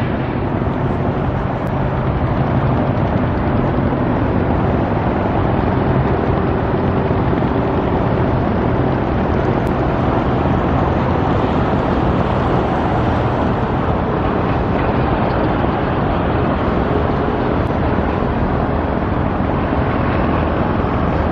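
Steady, loud road traffic noise, a continuous rush of passing vehicles with low engine hum, swelling a little about halfway through.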